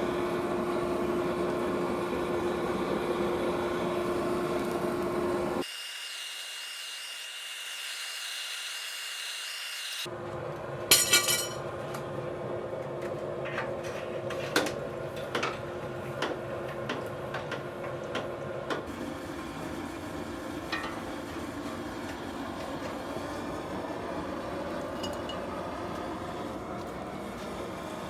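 Metal shop sounds in three cut sections. First a machine runs steadily with a hum. Then comes a quieter stretch of hiss with a high steady tone. Last come scattered metallic clinks and knocks over a steady background noise, with a cluster of them about eleven seconds in.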